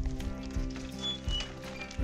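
Background music starts at once, with long held notes.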